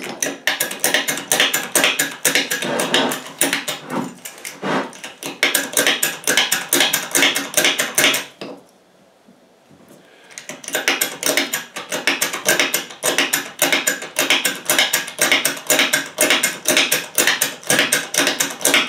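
Hydraulic bottle jack's pump plunger being worked quickly by hand, a fast run of sharp metallic clicks about four or five a second. The clicking stops for about two seconds a little before halfway, then resumes. The jack is being pumped after the air was bled from under its ram.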